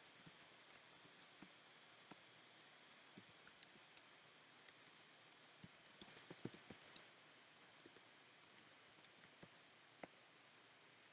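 Faint, irregular clicks of typing on a computer keyboard, coming in short clusters and stopping about ten seconds in.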